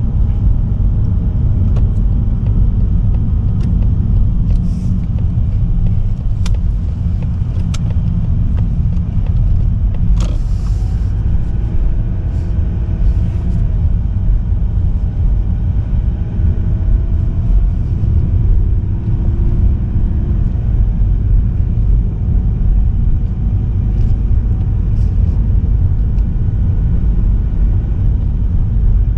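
Steady low rumble of a car driving: road and engine noise, with a few faint light clicks.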